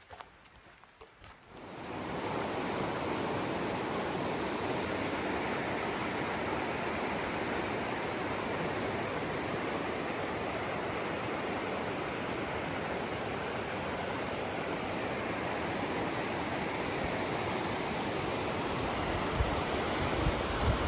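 Waterfall's rushing water, a steady even rush that comes in suddenly about two seconds in.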